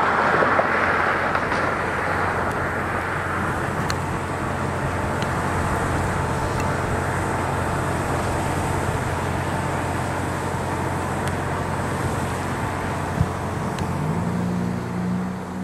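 Steady road traffic noise, a rush of passing vehicles that is loudest about a second in, over a low engine hum; near the end an engine rises in pitch.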